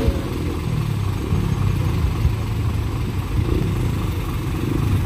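Steady low engine rumble from heavy vehicles moving slowly in traffic, with no sudden events.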